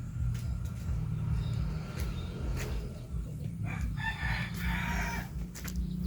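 A bird call lasting a little over a second, about four seconds in, over a steady low hum, with a few scattered clicks.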